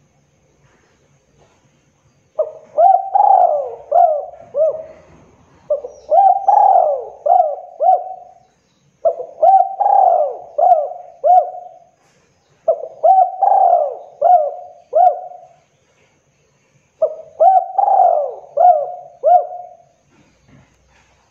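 Spotted dove cooing in five phrases, the first about two seconds in and the rest every three to four seconds. Each phrase is a quick run of five or six short coos.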